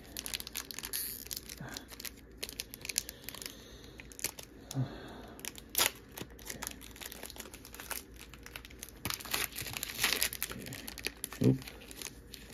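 Pokémon trading cards handled and laid down on a wooden table: scattered clicks and rustles of card stock, with crinkling of a foil booster pack wrapper.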